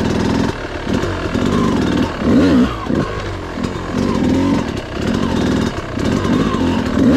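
Yamaha dirt bike's single-cylinder engine under way, its pitch rising and falling over and over as the throttle is opened and eased off at low speed.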